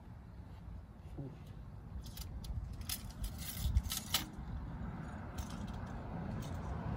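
Engine-oil dipstick being slid back into its tube in a Honda CR-V engine bay: a run of light metallic clicks and rattles between about two and four seconds in, over a low rumble of wind on the microphone.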